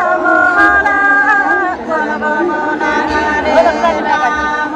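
Women singing a Nepali folk song (lok geet) without instruments, in long drawn-out notes.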